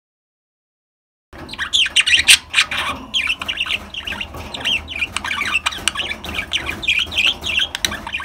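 Pet budgerigars chattering: after a second and a half of silence, a fast, continuous run of short high chirps and squawks.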